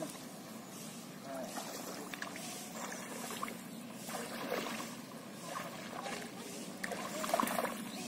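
Pond water sloshing and splashing as people wade and a cast net is gathered in by hand, with a louder cluster of splashes near the end; faint voices in the background.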